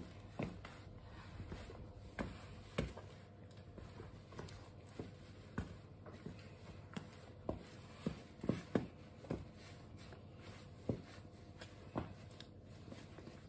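Footsteps of new Nike Air Jordan 1 Mid sneakers on a tiled floor: the rubber soles give soft, sharp taps in an uneven walking rhythm, about one step a second, some in quick pairs.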